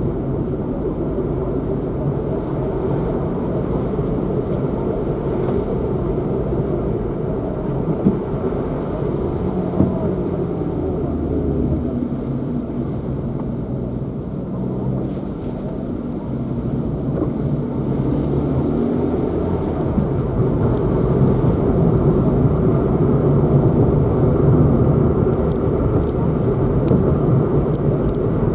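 Car driving along: steady engine and road noise, growing somewhat louder about two-thirds of the way through, with a few faint clicks near the end.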